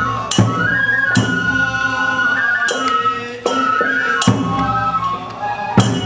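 Live Japanese folk festival music: a flute plays a held, stepping melody over taiko drum strikes that come about every second and a half.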